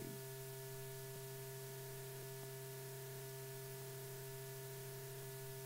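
A steady low hum with several faint steady higher tones over light hiss: the background hum of an old film soundtrack.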